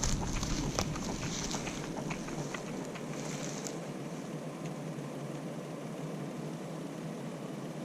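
Wind buffeting the microphone outdoors, with scattered sharp clicks of rustling in the first two seconds, then a steady, even hiss.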